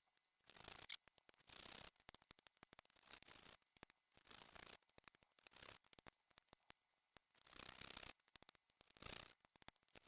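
Abrasive strokes rubbing across the metal frets of a guitar neck during fret levelling: short rasping scrapes, each about half a second to a second long, repeated with short pauses and light ticks between them.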